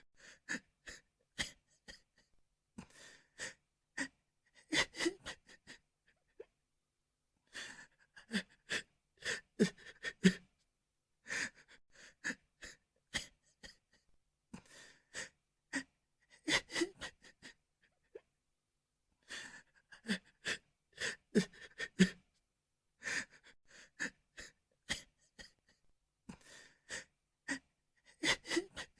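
A person crying: short gasping sobs and catching breaths in clusters, with brief whimpering voice sounds and pauses of a second or so between clusters.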